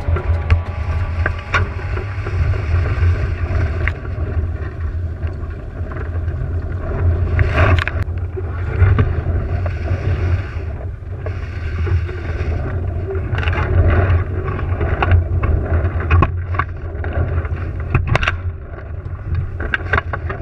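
Wind buffeting the microphone of a camera mounted in a GP14 sailing dinghy, over water rushing along the hull, with a few sharp knocks from the boat, the loudest about eight seconds in and near the end.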